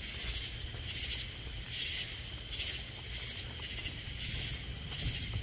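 Night insects chirping in a rhythmic chorus, pulsing about twice a second, over a low steady rumble.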